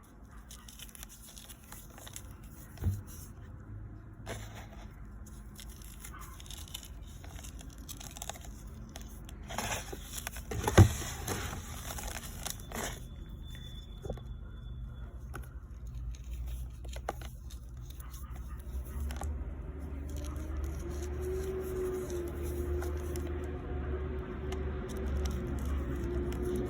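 Reformed baking soda chunks being crumbled and crushed: dry crackling, crinkling and scraping, with two sharp knocks about three and eleven seconds in. A low hum carrying a steady tone comes in during the second half.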